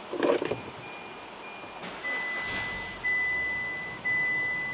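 Hyundai i10 dashboard warning chime. A short repeated high beep gives way, after a click about two seconds in, to a string of chimes about a second apart as the ignition is switched on. About halfway through comes a brief rush as the engine is started, with a thump just after the start.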